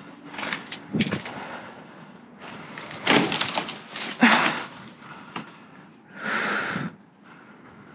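Knocks, clunks and scraping clatter as pieces of scrap are picked up and moved, with a longer rush of scraping and clattering a few seconds in and another near the end.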